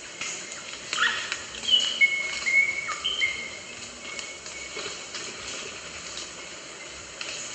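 Rosella calling: a series of clear, level piping whistles, some stepping from one pitch to another, over a steady background hiss.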